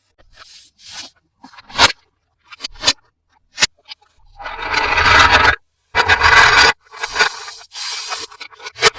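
Toy packaging being handled and opened: scraping and rubbing of cardboard and plastic with sharp clicks. There are two longer, loud scrapes in the middle.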